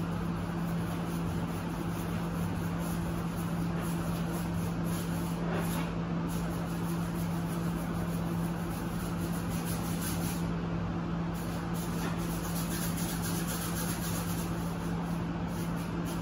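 A steady mechanical hum: a low drone holding one pitch over an even hiss, unchanging throughout.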